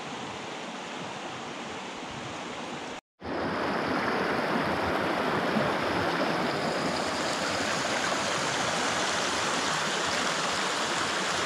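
Small rocky freestone stream running over stones and riffles: a steady rush of water. It cuts out briefly about three seconds in and comes back louder.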